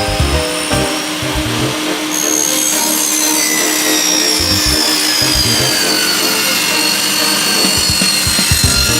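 Power tool running and cutting wood, with a steady high whine that sags slowly in pitch under load through the middle and recovers near the end.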